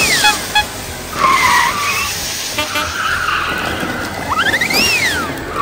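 Race-car sound effects: an engine revving up in quick steps and then dropping away, twice about four and a half seconds apart, with tyre squeals in between.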